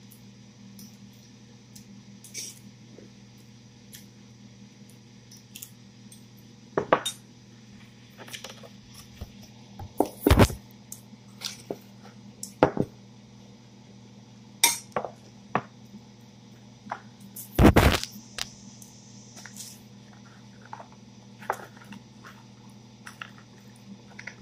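Scattered clinks, taps and knocks of food containers and cutlery being handled during a meal, the two loudest knocks about ten seconds in and near the end of the second third, over a steady low hum.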